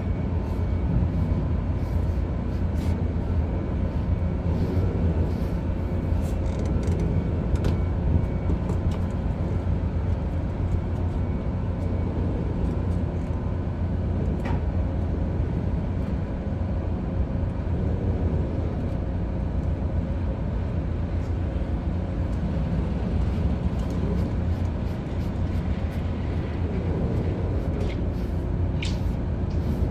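Steady low rumble and hum of a ship's running machinery, with a few faint clicks.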